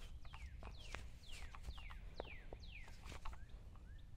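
A bird calling in a run of quick whistled notes, each sliding down in pitch, about two a second, then a few shorter, flatter notes near the end. A few faint clicks sound underneath.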